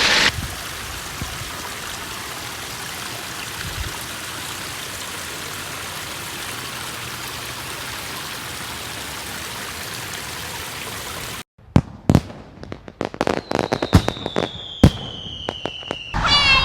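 Steady rush of water flowing and trickling, the pond's waterfall and stream running. After a sudden cut near the end, a scatter of sharp clicks and knocks and a thin falling whistle.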